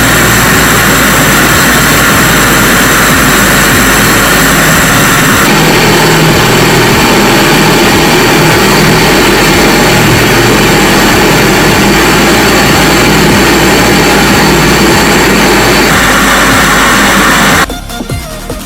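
A power tool running steadily at full speed with a loud, even, hissing whir. Its tone shifts slightly about a third of the way in, and it cuts off suddenly near the end.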